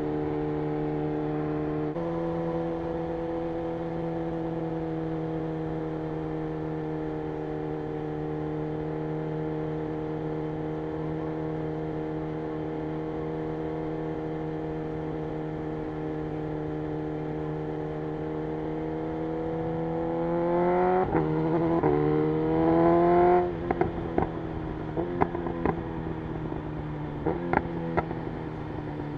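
BMW M 1000 R's inline-four engine running steadily at cruise, then opened up hard about twenty seconds in, climbing in pitch with two quick breaks as it shifts up. The throttle then shuts suddenly and the engine winds down with a string of sharp pops and crackles from the exhaust on the overrun.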